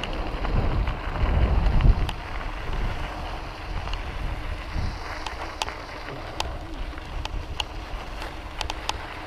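Wind buffeting a mountain bike's action-camera microphone, over the rolling noise of knobby tyres on packed dirt. The wind is heaviest in the first two seconds and then eases. Scattered sharp ticks from the bike rattling over the ground come more often near the end.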